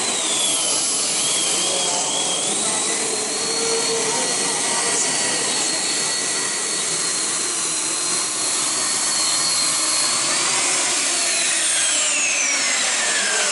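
Twin gas-turbine engines of a modified pulling tractor running flat out under load: a steady high whine over a loud, dense rush of exhaust noise. About eleven seconds in, the whine begins falling steadily in pitch as the turbines wind down.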